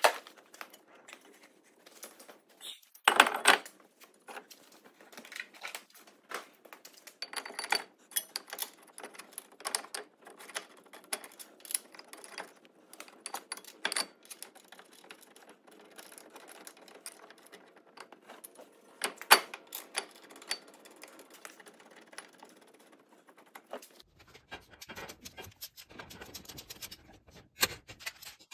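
Irregular metallic clinks, clicks and knocks of hand tools and brake parts as a brake rotor is fitted onto a front wheel hub and the caliper is bolted back on with a ratchet. Two knocks stand out, one about three seconds in and one past the middle.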